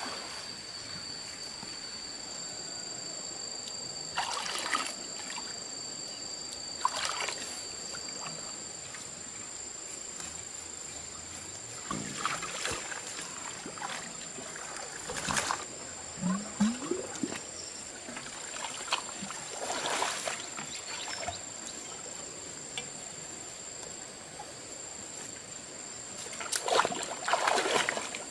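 Water splashing and sloshing in short bursts every few seconds, over a steady high-pitched whine that partly drops out about a third of the way through.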